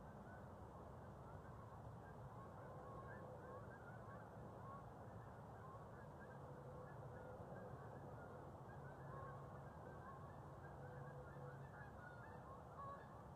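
Faint, distant waterfowl honking: many short calls repeating irregularly over a low steady hum.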